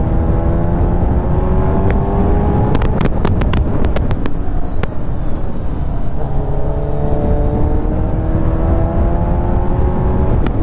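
Kawasaki Ninja sport motorcycle engine pulling in gear at road speed, its pitch rising slowly, with wind rush on the microphone. A few sharp clicks come in the middle, then the engine pitch climbs slowly again.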